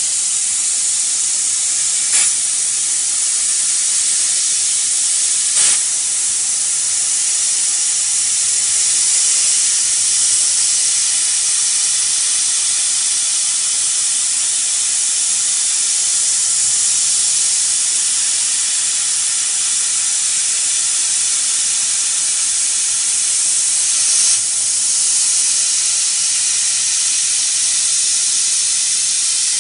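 CO2 laser cutter working through 18 mm plywood: a steady, high hiss of the air assist blowing through the cutting head's nozzle onto the cut. A few brief clicks break in, one a couple of seconds in, one about five seconds in and one near the end.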